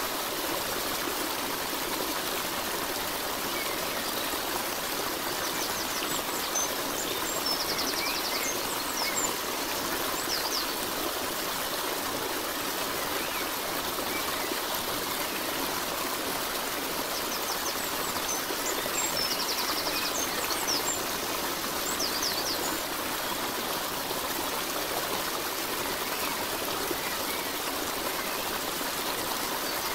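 Steady rushing of a stream, flowing water, with birds chirping briefly twice, about a quarter and two-thirds of the way through.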